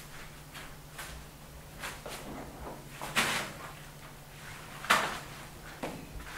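Handling noises of painting by hand: a few sharp knocks and scrapes of paint pots and brushes, the loudest two about three and five seconds in, over a low steady hum.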